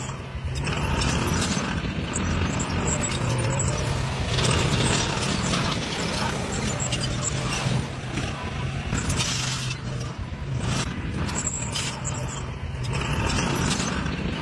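Shantui crawler bulldozer working: its diesel engine runs steadily under dense, continuous clanking and creaking from the steel tracks.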